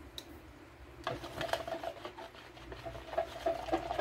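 Light, irregular rubbing and scraping with small clicks from plastic measuring jugs of melted soap being handled, starting about a second in.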